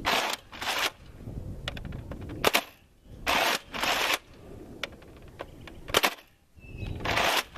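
Nerf MEGA Centurion dart blaster being fired and primed again between shots: short rasping strokes in pairs, and two sharp cracks about three and a half seconds apart.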